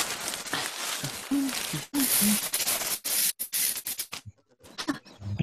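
Cartoon sound effects from an animated story: a rough scraping, rustling noise with a few short squeaky blips, cutting off about four seconds in.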